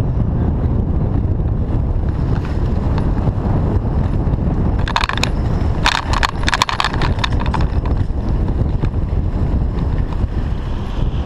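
Steady low rumble of a bicycle ride, with wind on the bike-mounted microphone and tyres on the road. About five seconds in comes a burst of clattering rattles lasting two to three seconds as the bike and its wire basket shake over paving.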